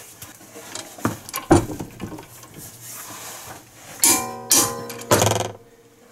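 Click-type torque wrench pulled on a brake caliper bracket bolt, giving a few sharp clicks about a second and a half in as it reaches torque. Two louder ringing, pitched sounds follow near the end.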